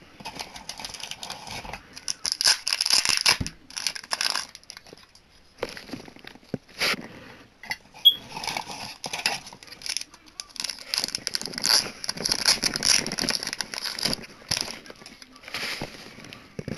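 Packaging crinkling in bursts while small tin can badges are unpacked and handled, with a few sharp clicks of the metal badges being set down.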